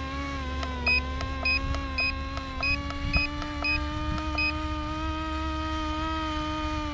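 Small electric motor and propeller of a toy RC P-51D Mustang plane whining steadily in flight, its pitch creeping slowly upward. A faint high beep repeats about twice a second through the first half.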